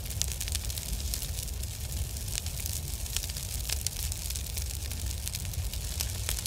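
Fire sound effect: a steady low rumble of flames with dense, irregular crackling.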